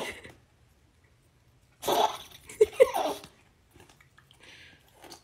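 Small dog lying on its back having its belly rubbed, letting out one short breathy vocal noise with a couple of brief squeaks in it, about two seconds in.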